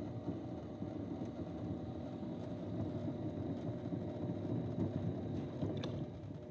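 Electric potter's wheel running with a steady low rumble and a faint hum.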